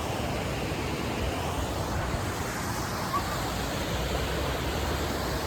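Steady rushing of river water over rapids, an even hiss with no break.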